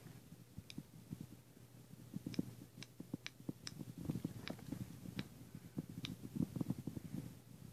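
Handling noise from a Zhu Zhu Pets toy hamster turned over in the hand: scattered faint clicks over low rustling.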